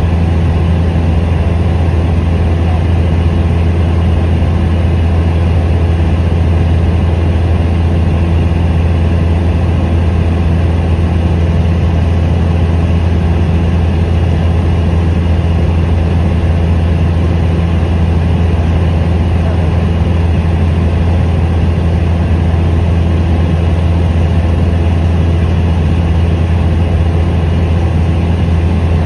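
A light aircraft's piston engine and propeller droning steadily in flight, heard inside the cabin. It is a loud, even, low drone that does not change.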